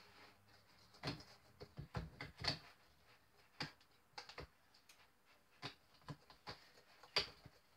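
Irregular light taps and scrapes of small hand tools chipping at the plaster block of a dinosaur fossil dig kit, a tap or two a second.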